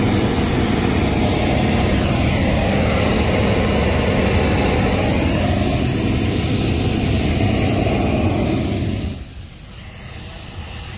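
Hot-air balloon's propane burner firing in one long blast overhead: a loud, steady roar that cuts off about nine seconds in, leaving a quieter steady engine-like noise.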